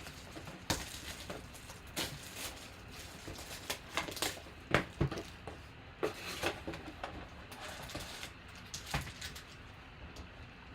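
Light, irregular clicks and taps of trading-card packs and cards being handled and opened on a tabletop.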